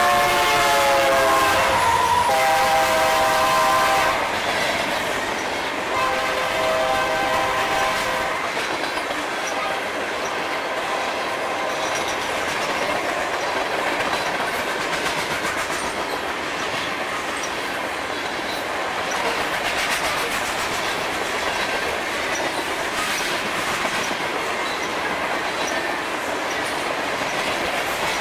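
BNSF SD60M diesel locomotive's horn blowing as it passes, dropping in pitch in the first second, then a second blast a few seconds later. After that, the train's covered hopper cars roll by with steady wheel noise and clickety-clack over the rail joints.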